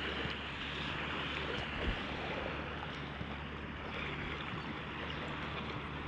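Small waves washing on the sand, with a steady low drone of a boat engine out on the water. A brief thump about two seconds in.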